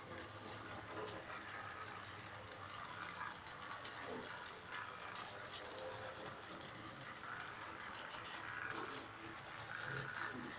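Model trains running on the layout's track: a small electric locomotive motor hums steadily, with light clicking of wheels over the rail joints.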